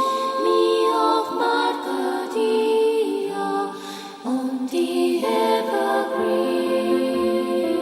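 Ambient music of layered, long-held tones that shift in pitch, thinning out about three and a half seconds in and swelling back about a second later.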